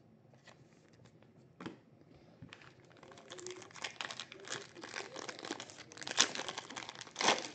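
A trading card pack wrapper being torn open and crinkled. It starts with a few soft clicks, then from about three seconds in turns to steady crackling, with the loudest rustles near the end.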